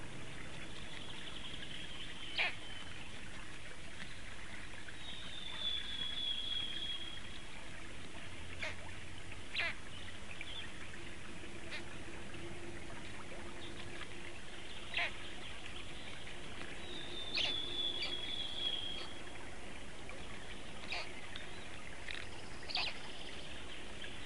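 High-pitched bird calls over a steady background hiss: scattered short, sharp chirps and twice a drawn-out wavering note lasting over a second.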